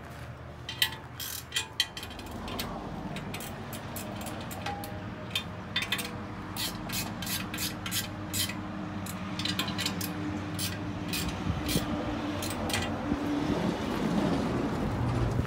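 Hand ratchet wrench clicking in short, irregular runs as the bolts of a crop divider mount are tightened while it is trued up to the tire.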